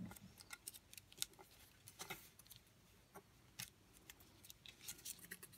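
Faint, scattered crinkles and ticks of a small piece of paper being folded and creased by hand.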